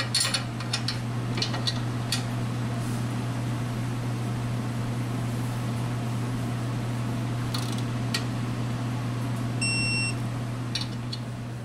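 Digital torque wrench tightening a rear upper control arm bolt: a few ratchet clicks, then a short high beep near the end as it reaches the set torque of 56 foot-pounds. A steady low hum runs underneath.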